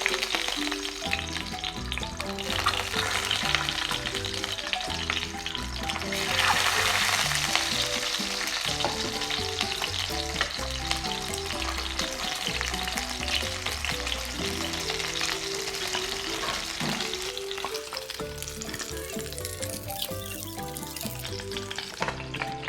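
Food frying in hot oil in a pan, sizzling steadily while it is stirred, with the sizzle getting louder about six seconds in.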